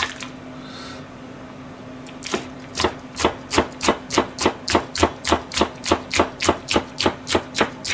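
Kitchen knife slicing a green pepper into thin rings on a plastic cutting board: quick, even knife strikes on the board, about five a second, starting about two seconds in.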